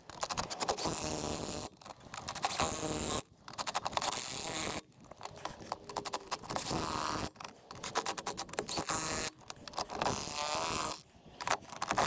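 DeWalt cordless impact wrench running on a skid steer's wheel lug nuts in about seven short runs of a second or two each. Each run has rapid hammering, with brief pauses between nuts.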